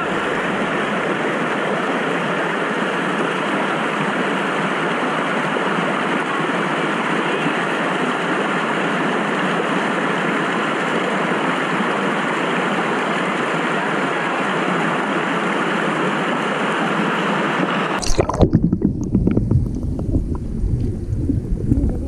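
A shallow rocky mountain stream rushing steadily over rocks. About eighteen seconds in, the sound abruptly turns muffled and low with irregular bumps, heard from under the water.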